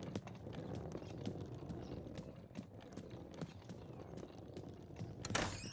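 Footsteps of small cartoon characters walking: light, irregular taps over a faint background, with a louder clatter near the end.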